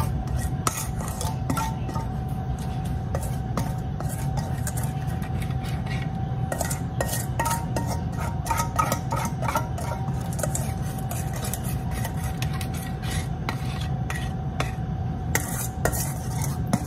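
Batter being scraped out of a stainless steel mixing bowl: repeated light scrapes and clicks of a utensil against the metal bowl, over a steady low hum.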